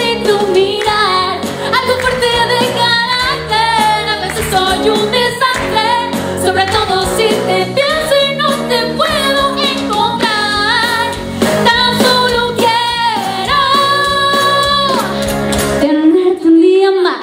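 A woman singing a Spanish-language pop song live into a microphone, with instrumental accompaniment that includes an acoustic guitar. Near the end the accompaniment drops out under a final held note that rises in pitch.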